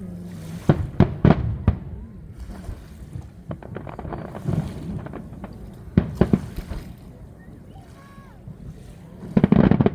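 Fireworks going off: a quick run of sharp bangs in the first two seconds, another pair about six seconds in, and a dense burst of crackling just before the end.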